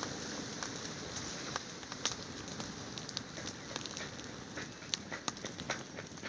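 Open fire of dry coconut palm fronds and sticks crackling, with many irregular sharp pops over a low steady hiss.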